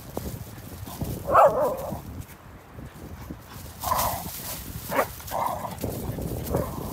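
Dogs barking during rough play: several short barks, the loudest about a second and a half in, over a steady low rumble.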